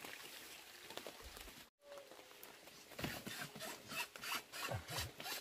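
Scuffle of a Muscovy duck being grabbed and struggling: a regular run of short raspy strokes, about three a second, starting about three seconds in, with a couple of dull thumps.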